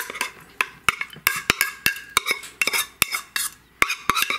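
Irregular clicks and clatter of dog food being scooped out of a plastic bowl and dropped onto a small ceramic plate.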